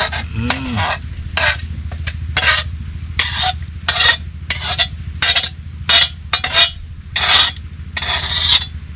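Metal ladle scraping the inside of a metal wok in short, repeated strokes, roughly two a second, as cooked noodles are scraped out onto a plate. A steady low hum runs underneath.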